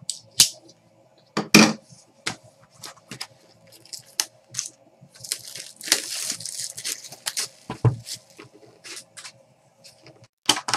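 Sports card boxes and packs being opened by hand: scattered clicks and rustles of cardboard and wrappers, with a longer tearing, crinkling stretch about five to seven seconds in.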